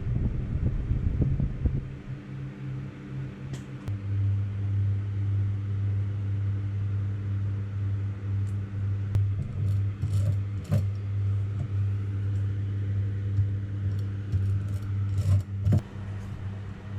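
A motor running steadily with a low hum; its pitch drops to a lower steady note about four seconds in. A few light clicks and taps come near the middle and near the end.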